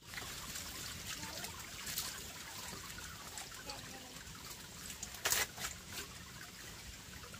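Water trickling and splashing, with a louder sudden noise about five seconds in.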